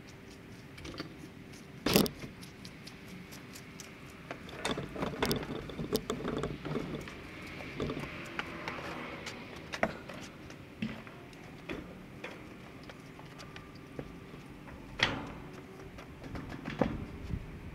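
Steel cattle-panel fencing (welded-wire livestock panel) rattling and clanking as it is lifted, flexed into an arch and seated on a wooden pallet base, with irregular clicks and several sharp knocks, the loudest about two seconds in and another about fifteen seconds in.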